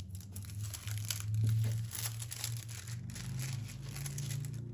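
Plastic film on a diamond painting canvas crinkling and rustling as hands smooth and straighten it on a cloth-covered table, over a low steady hum.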